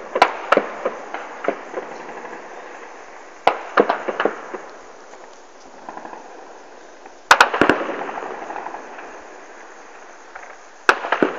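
Machine-gun fire in short bursts: four volleys of rapid shots a few seconds apart, each followed by an echo.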